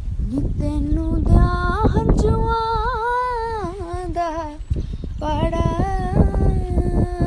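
A woman singing two long, wavering, held phrases with a short break between them, over a low rumbling noise on the phone's microphone.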